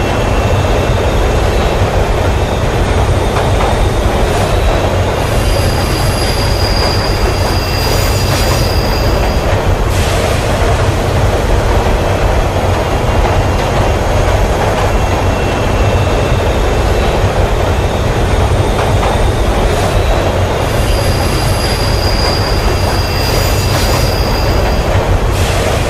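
Metro train running along the rails, a steady rumble with a high wheel squeal that comes in twice, for a few seconds each time.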